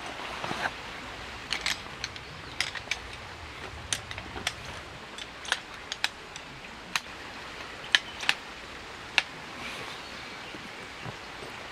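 About a dozen sharp, irregular clicks and taps, a second or so apart, over a faint steady hiss.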